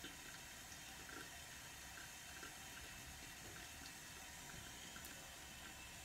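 Near silence: a faint steady hiss of room tone, with a few faint small clicks.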